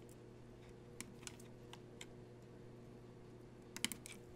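Faint clicks and taps of iPhone 6 parts being handled and pressed into place in the phone's housing, with a quick cluster of sharper clicks near the end. A steady low hum runs underneath.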